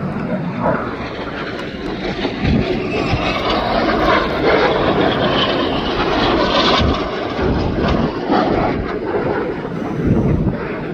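Jet noise from Red Arrows BAE Hawk T1 jets flying past, their Rolls-Royce Adour turbofans growing louder about two seconds in and staying loud.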